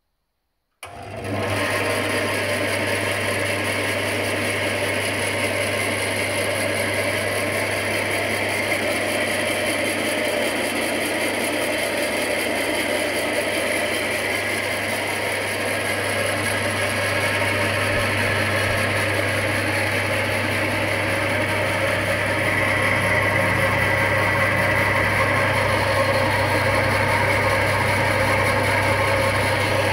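Prosaw 230 V woodworking band saw starting up about a second in, then running idle: its electric motor, drive pulley and blade make a steady low hum under a whirring rush.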